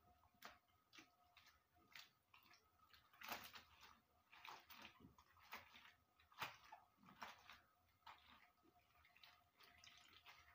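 Faint, irregular squelching and splashing of soaked dried molokhia (jute mallow) leaves being rubbed and squeezed by hand in a bowl of water, with water dripping back into the bowl.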